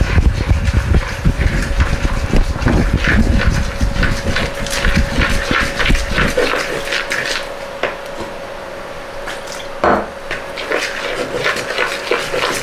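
Fish-and-chip batter being mixed by hand in a mixing bowl: a utensil clicking and scraping against the bowl in quick, irregular strokes, with one stronger knock near the end. A low rumble runs under the first half and stops about halfway, over a faint steady hum.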